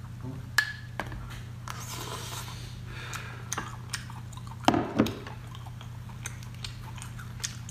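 Cooked lobster being handled and eaten: scattered small clicks, taps and crackles of shell and a glass sauce bowl, with two sharper knocks a little past halfway. A steady low hum runs underneath.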